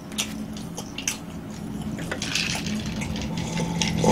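A person drinking water from a glass, sipping and swallowing, with a few light clicks in the first second or so.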